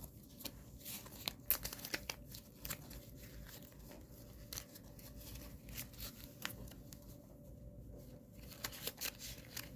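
Pokémon trading cards and their foil-and-plastic packaging being handled: faint, irregular crinkling, tearing and light clicks.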